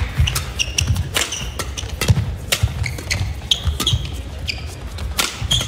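Badminton rally: rackets strike the shuttlecock sharply in quick succession, with shoes squeaking and feet thudding on the court.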